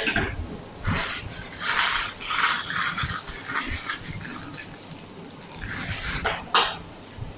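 A disposable plastic piping bag rustling and crinkling as it is handled, and scissors snipping off its tip.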